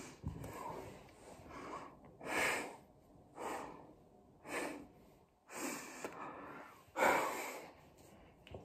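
A woman breathing audibly close to the microphone: a series of loud breaths about a second apart, with the loudest near the end.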